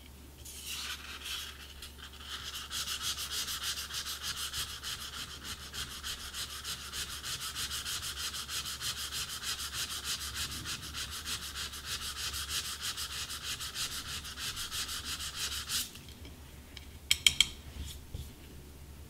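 Cane clarinet reed sanded back and forth on 120-grit sandpaper over a glass plate: fast, even, scratchy strokes that stop suddenly about three-quarters of the way through. A few sharp clicks follow near the end, louder than the sanding.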